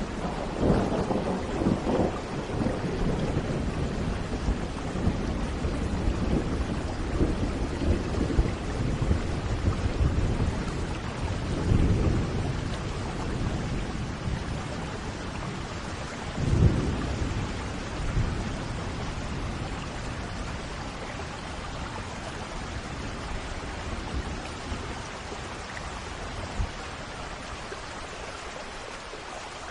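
Thunderstorm: steady heavy rain with rolling thunder rumbling several times, the strongest clap about halfway through, then the rumbling easing off toward the end.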